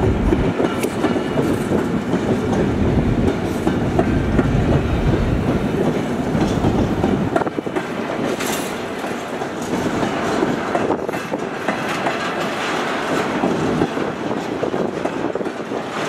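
BNSF freight train of intermodal well cars rolling past, its steel wheels clicking over the rail joints above a steady rumble. The deep part of the rumble eases about halfway through.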